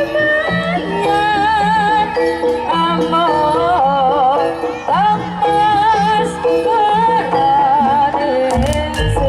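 Jaranan ensemble music: a wavering melody line held and bent over a steady, repeating percussion beat, with a heavier low stroke near the end.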